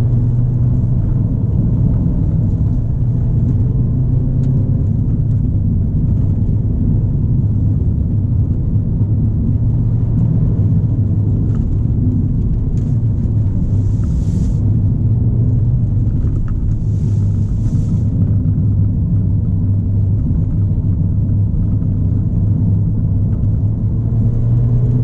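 Ford Fiesta ST driving at a steady cruise: a continuous, even engine and road rumble, with two brief hisses about halfway through.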